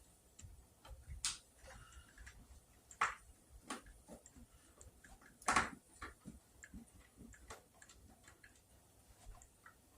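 Irregular light clicks and taps of hand tools and metal parts being handled while a Kirby vacuum is taken apart by hand, with a few sharper knocks about 1, 3 and 5.5 seconds in.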